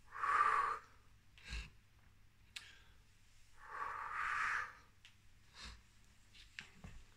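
A man breathing out hard twice, about three and a half seconds apart, with the effort of deep squats done while holding a baby, with a few soft low thumps in between.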